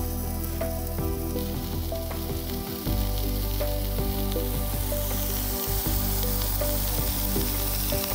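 Carrots, tomato and napa cabbage frying in a camping pan over a gas stove: a steady sizzle that gets louder about three seconds in.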